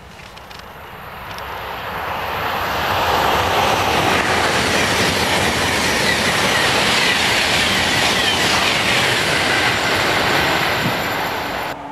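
SNCF TGV high-speed train passing at speed: a loud, steady rush of wind and wheel noise. It builds over the first two to three seconds, holds, and cuts off abruptly near the end.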